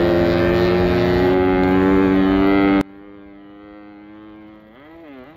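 Yamaha RX-King two-stroke single-cylinder motorcycle engine running steadily at cruising speed under the rider, loud, its pitch rising slightly. About three seconds in the sound drops suddenly to a much quieter engine sound, whose pitch wavers near the end.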